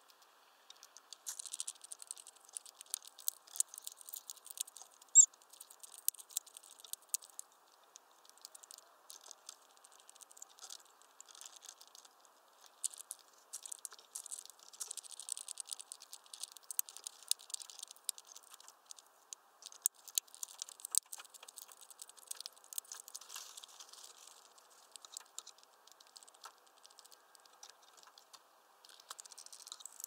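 Faint, dense, irregular crackling and ticking clicks throughout, with one short high chirp about five seconds in, the loudest sound.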